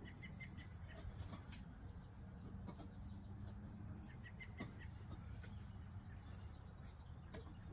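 Faint bird chirps in short quick series, over a low steady hum and a few light clicks.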